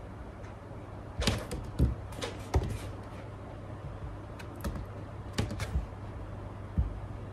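Scattered light clicks and knocks, some in quick pairs, over a steady low hum.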